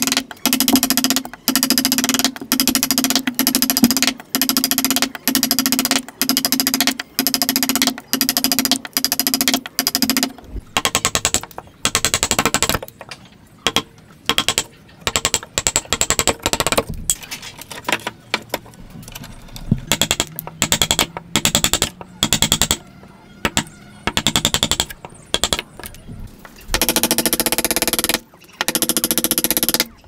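A wood chisel being struck again and again as it chops into a clamped timber block. The knocks come about two a second over a steady ringing tone for the first ten seconds, then turn quicker and more irregular.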